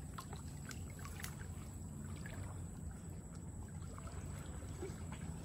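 Faint water splashing and trickling, with scattered small clicks, as a gill net is worked in shallow floodwater. A low steady hum runs underneath.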